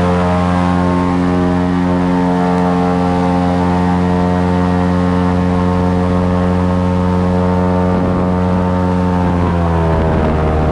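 Airboat's engine and propeller running at a steady high speed, a loud even drone; the pitch drops a little near the end.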